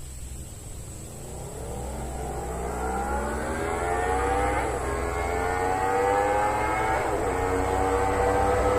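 Motorcycle engine accelerating hard and growing louder as it comes closer, its pitch climbing in each gear with a quick drop at two upshifts, about halfway through and near the end.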